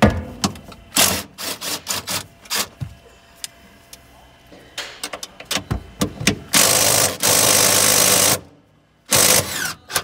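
Cordless impact wrench undoing a rear strut's top-mount nut: one run of about two seconds in the second half, and a short burst about a second later. Before it come scattered clicks and knocks of the tool and socket being set on the nut.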